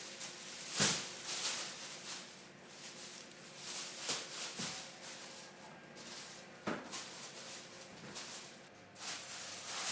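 Irregular rustling and scraping with a few sharp knocks, the loudest just under a second in: things being handled and moved about.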